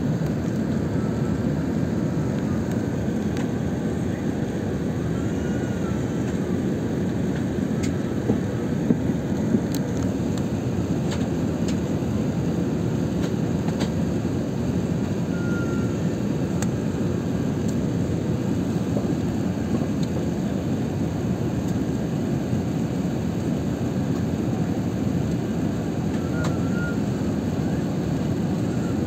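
Steady cabin noise of a jet airliner in flight, heard inside the passenger cabin: the even, deep rush of engines and airflow. A few light clicks sound about eight to ten seconds in.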